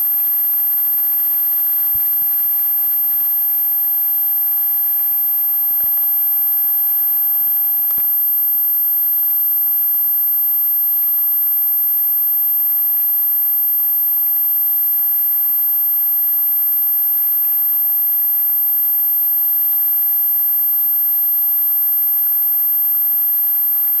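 Shallow stream water rushing steadily over a fallen log and rocks, an even hiss with a thin steady whine over it.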